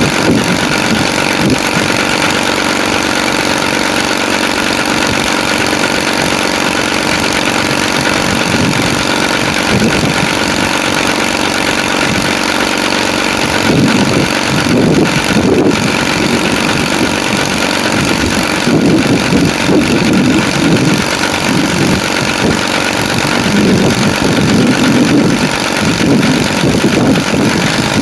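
Engine running steadily at idle, its low note swelling unevenly a few times in the second half.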